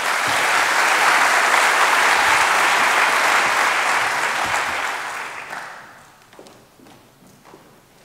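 Audience applauding in a lecture hall: clapping from the start, steady for about five seconds, then dying away.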